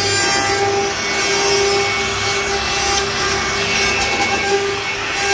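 CNC router spindle carving a decorative pattern into a wooden door panel: a steady whine from the spindle over the continuous hiss of the bit cutting the board.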